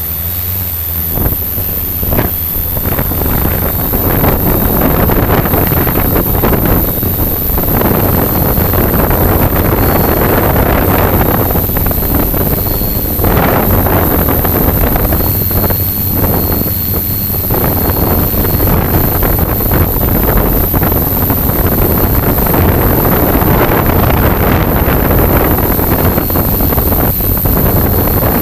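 Multirotor drone's motors and propellers running in a steady hum with a thin high whine, picked up by the camera on the drone itself, with wind buffeting the microphone in gusts that swell and fade.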